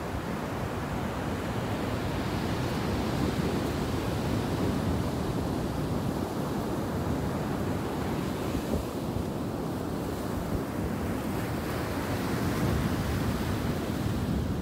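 Ocean surf breaking and washing up a sandy beach: a steady rushing that swells twice as waves come in.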